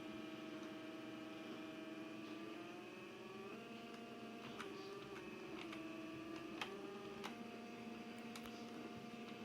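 Steady low mechanical hum made of several tones, which rises in pitch about three seconds in and shifts again a little later, with a few faint clicks.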